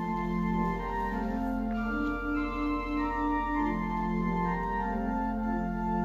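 Organ music starting suddenly: slow held chords that change every second or so over a steady low bass.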